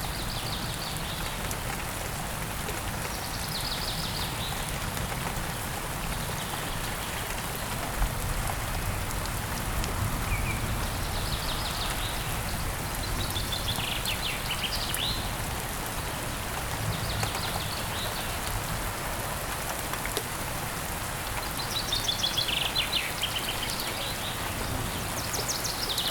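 Steady heavy rain falling, with birds calling over it in short bursts of rapid chirps every few seconds.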